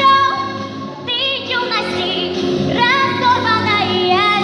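A girl singing a song over instrumental accompaniment, holding long notes with vibrato; the singing drops back briefly about a second in, then resumes.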